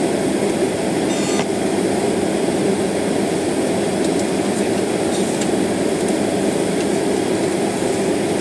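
Steady airliner cabin noise: jet engines idling and the air-conditioning packs blowing while the plane holds still before takeoff. A brief faint high tone sounds about a second in.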